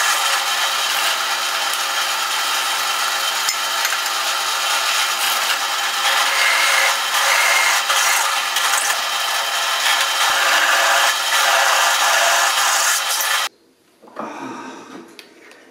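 Drill press running with a twist bit cutting through steel flat strap: a loud, steady grinding whine with scraping from the bit, which stops abruptly about 13 seconds in. Quieter, irregular handling sounds of steel pieces follow.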